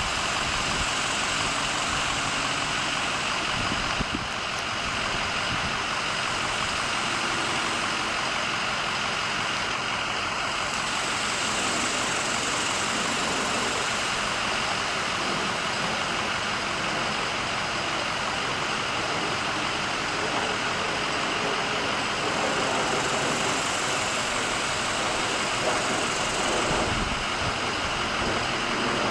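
A loud, steady rushing noise, like a motor running continuously without change.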